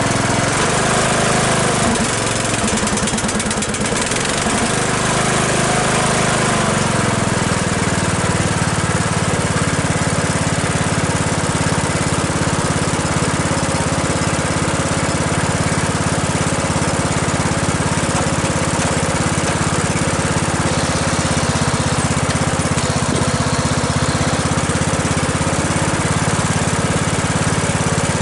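Briggs & Stratton 15.5 HP riding lawnmower engine running just after starting, with its valves freshly adjusted back to spec. It is a little uneven for the first several seconds, then settles into a steady idle.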